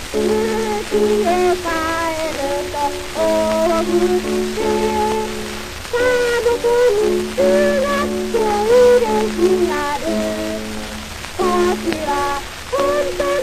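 A Japanese shōka school song sung by a solo voice on an early Taishō-era Nipponophone 78 rpm disc, over a steady held accompaniment, with an even hiss and crackle of record surface noise throughout.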